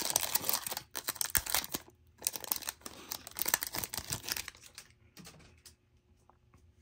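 Foil trading-card pack wrapper being torn open and crinkled: a dense, rapid crackling that thins out after about five seconds to a few faint ticks.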